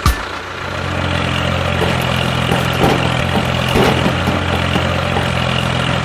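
A sharp knock, then an engine running at a steady idle from about half a second in, with a few clicks and rattles midway.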